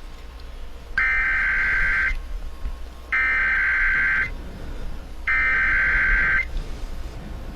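Emergency Alert System SAME header: three bursts of buzzy, screechy digital data tones, each about a second long and about a second apart, sent to activate a tornado warning on a radio broadcast.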